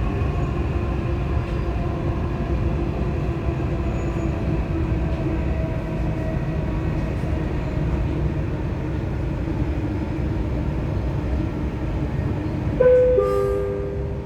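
Dubai Metro train running between stations, heard from inside the carriage: a steady low rumble with a faint motor whine drifting slowly in pitch. About thirteen seconds in, a two-note descending chime sounds, the signal that an on-board announcement is coming.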